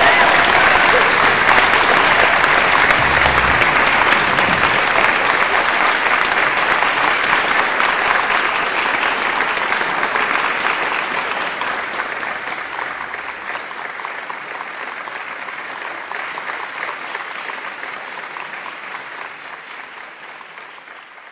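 Audience applause, steady at first, then fading out gradually through the second half.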